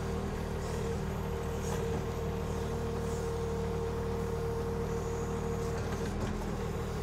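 Kubota diesel engine of a KYMRON XH26 mini excavator running steadily at idle while it digs. A higher steady whine comes in over it about a second in and drops away near the end.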